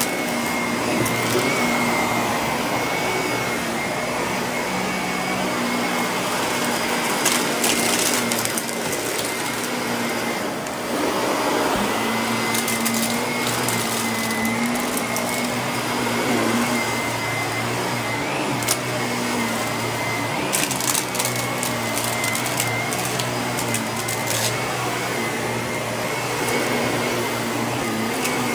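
Shark upright vacuum cleaner running steadily with its brushroll spinning as it is pushed back and forth over carpet and a plush rug, a steady high whine over the motor noise. A few short bursts of crackling break in, around a third of the way in, near the middle and about three quarters through.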